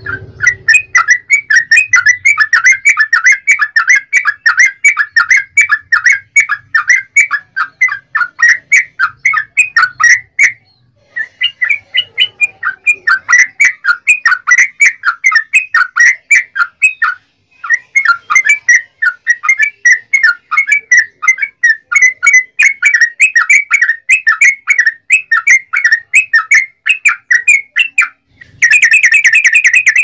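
Yellow-vented bulbul (trucukan) singing a long, rapid 'ropel' run of short chattering notes, several a second. The song breaks off briefly twice, about 11 and 17 seconds in, and turns into a denser, buzzier burst near the end.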